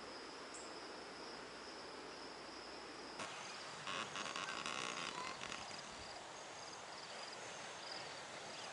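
Insects chirping faintly in short repeated high trills over a steady outdoor hiss.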